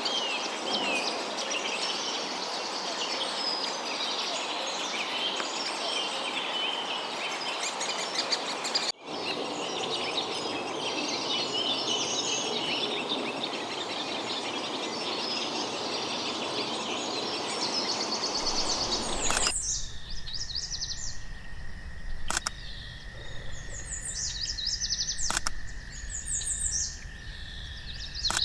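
Wild birds calling and singing: a dense chorus of chirps and song over a steady hiss. About two-thirds of the way through it gives way to repeated short, high call phrases over a faint steady tone and low rumble, with two sharp clicks.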